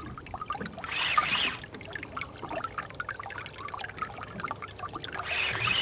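Water lapping and splashing against a small boat's hull on a choppy reservoir, with two short swells of splashing, about a second in and near the end.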